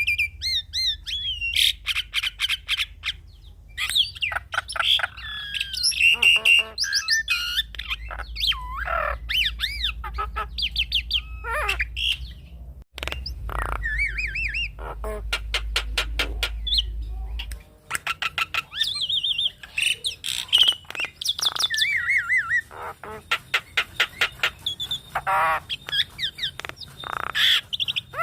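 Javan myna singing a varied master song: rising and falling whistles, squawks and rapid runs of sharp clicking notes. It is a recording played to train captive starlings. A low hum underneath cuts out briefly near the middle and stops about two-thirds of the way through.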